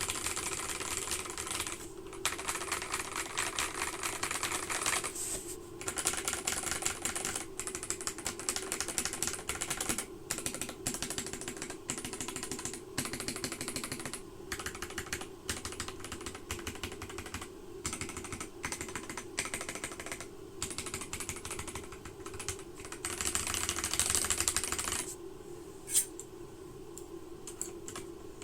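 Akko 3068B mechanical keyboard with ASA-profile keycaps and very smooth switches being typed on in fast runs with short pauses, thinning to a few single key presses near the end. A steady low hum runs underneath.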